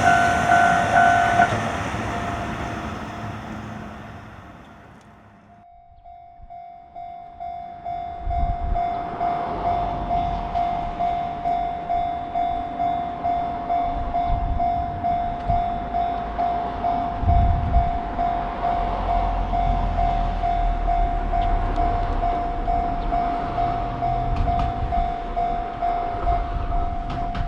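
Japanese railroad crossing warning bell ringing its rapid "kan kan" in a steady rhythm. At the start it rings over a passing train, and both fade away. After a short silence another crossing's bell starts and rings on evenly, with low rumbles now and then.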